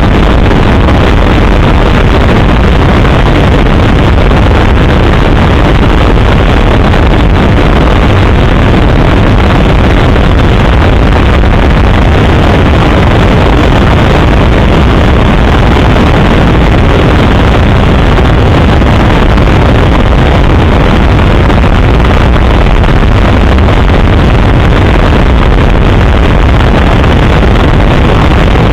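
Helicopter rotor and engine noise heard from inside the cabin: a loud, steady, unbroken rumble.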